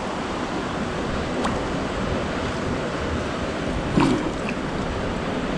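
Steady rushing noise of a river running high after rain, with a brief soft low sound about four seconds in.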